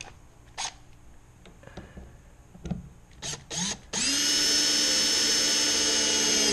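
A few short handling clicks and rustles, then about four seconds in a handheld heat gun's fan motor switches on and runs at a steady pitch with a whine, cutting off at the end.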